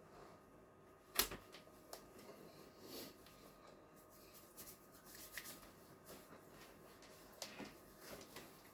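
Faint rustling and scattered small clicks of hands working over a body during bodywork, with one sharp click about a second in.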